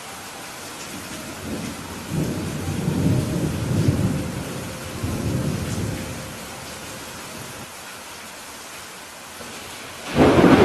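Steady rain falling with thunder: a long low rumble swells and fades about two seconds in, and a sharper, louder thunderclap breaks near the end.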